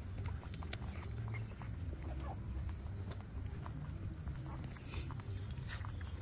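Eight-day-old puppies nursing from their mother, with many short, irregular sucking and smacking clicks and a few faint brief squeaks over a low steady rumble.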